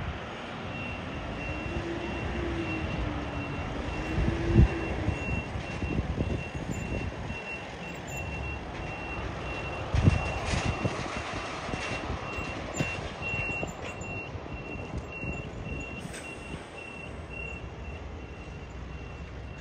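Reversing alarm on an airport ground vehicle beeping, about two high beeps a second, starting about a second in and stopping near the end. Underneath runs a steady rumble with a few low thumps of wind on the microphone.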